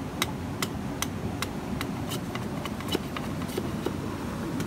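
A large knife chopping at a wooden stick: sharp, even strokes about two or three a second, over a steady low rumble.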